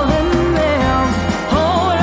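Background pop music: a wavering melody line over a steady bass.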